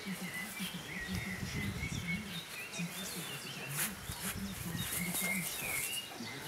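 Small birds chirping again and again, over a low wavering sound that comes and goes, with a few short clicks or rustles, one about four seconds in.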